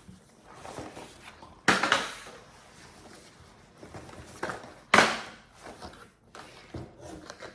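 Packaging being handled during unboxing: cardboard rustling and knocks, with two loud sharp clatters, one a couple of seconds in and one about five seconds in.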